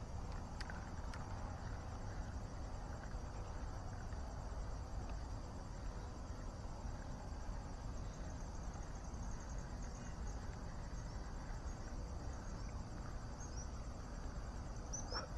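Insects chirping steadily in a high band over a low steady rumble, with a brief loud sound at the very end.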